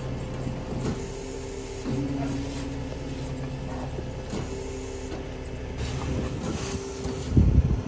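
Tow truck's engine running with steady whining tones that cut in, change and stop several times. A heavy low thud comes near the end.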